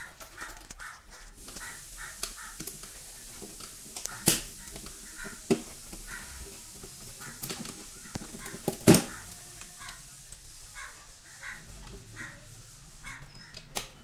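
Electrical wires being handled inside a metal distribution board: rustling and scraping, with a few sharp knocks against the enclosure, the loudest about nine seconds in. Short faint chirps come and go throughout.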